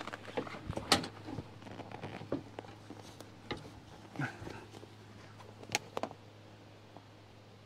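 Scattered light clicks and knocks of a Ford Bronco's soft-top frame and latch hardware being handled and shifted, the sharpest about a second in and twice close together near six seconds in. A faint low hum runs underneath.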